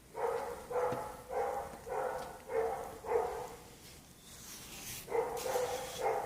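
A dog barking in a steady run, a bit under two barks a second, about six barks, then a pause of about two seconds before it barks a few more times.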